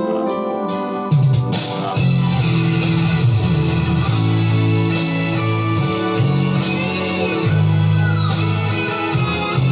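Recorded Brazilian gospel pop-rock song in an instrumental break, with a guitar lead over bass and band. The full band comes in strongly about a second in.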